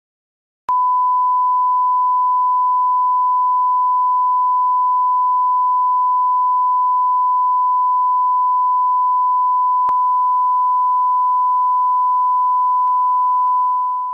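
Steady single-pitch line-up test tone, the reference tone that goes with colour bars, starting about a second in and fading out at the end. One brief click about ten seconds in.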